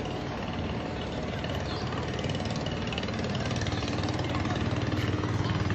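Engine of a small vehicle running steadily, its low hum growing louder near the end.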